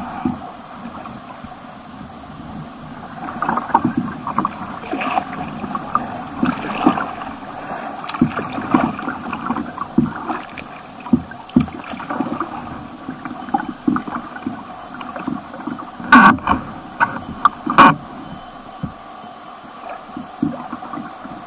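Kayak paddles dipping and splashing in a shallow riffling stream, water gurgling and lapping around the hulls, with irregular strokes throughout and two louder sharp hits about three-quarters of the way through.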